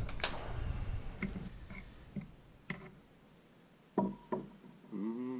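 A few sparse sharp metal taps and clicks, thinning out, from a tool worked against the old detent sleeve in a cast ZF five-speed transmission case to deform it loose. A man hums briefly near the end.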